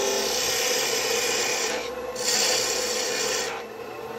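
Something pressed by hand against a small wooden handle spinning on a lathe, rubbing against it in two long passes with a brief break between them. A steady hum from the running lathe sits underneath.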